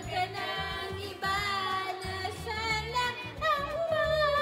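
Music: a song with a woman singing a melody over a repeating bass beat.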